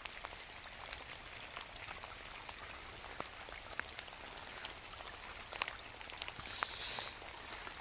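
Steady rain falling through woodland, with scattered drops ticking sharply on nearby surfaces.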